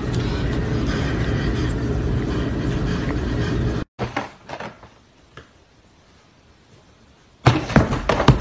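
A steady low noise cuts off after about four seconds. Then comes a quiet stretch with a few soft taps, and near the end a loud flurry of thumps and scuffs as two cats swat at each other in a felt donut cat bed.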